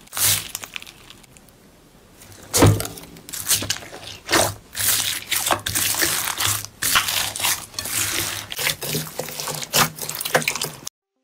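Hand squeezing and kneading glossy slime packed with small beads: irregular wet squelches and crackles. It starts with one squish, goes quiet for a second or two, then the squishing comes thick and fast and cuts off suddenly near the end.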